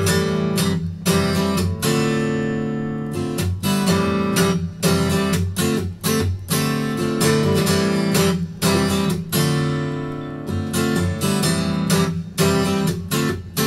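Acoustic guitar strummed in a steady rhythmic chord pattern, starting abruptly: the instrumental intro before the vocal comes in.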